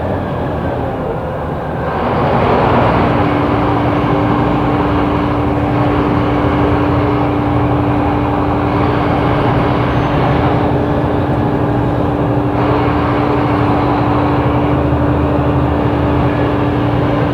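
Scania K270IB bus's diesel engine running with a ZF automatic gearbox, a dense rumble with a steady whine over it. The sound eases briefly at the start and picks up about two seconds in.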